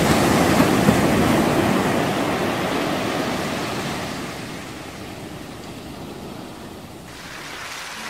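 Wind and sea rushing past the deck of a moving tour boat, with wind buffeting the microphone; loudest at the start and fading steadily.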